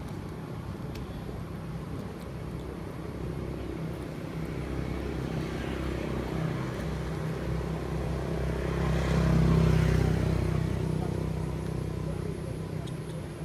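Motor vehicle passing by: a low engine hum that grows louder to a peak about two-thirds of the way in, then fades away.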